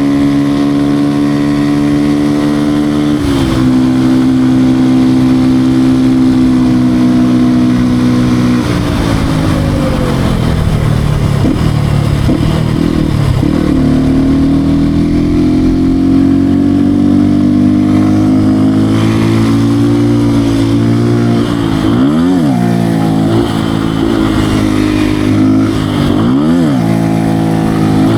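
Beta RR 125 R single-cylinder motard engine under way, holding steady revs with a drop in pitch about three seconds in. The revs fall off around nine seconds and build again. Near the end there are two quick rev blips, each rising sharply and falling straight back.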